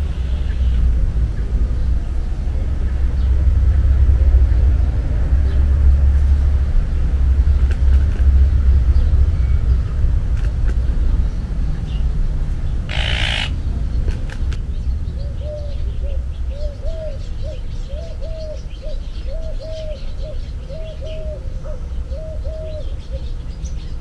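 Birds in a garden: faint scattered chirps over a steady low rumble, a short loud rustle about halfway through, then a run of short, even, mid-pitched call notes repeated about one and a half times a second for several seconds.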